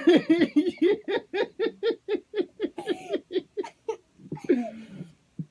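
Young girl giggling in a long run of quick "ha-ha-ha" pulses, about five a second, trailing off about four seconds in. A short falling vocal sound follows.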